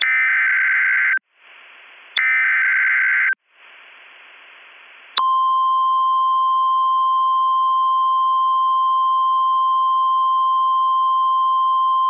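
Emergency Alert System SAME header: two roughly one-second bursts of harsh, screechy digital data tones about a second apart, with a faint hiss between them. About five seconds in, the NOAA Weather Radio warning alarm comes on: a single steady, piercing high tone that holds unbroken. Together they announce that a warning broadcast is about to follow.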